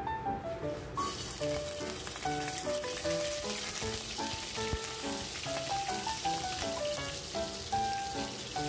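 Raw shrimp sizzling in hot oil in a wok, the sizzle starting suddenly about a second in as they hit the pan and then holding steady. Light piano music plays throughout.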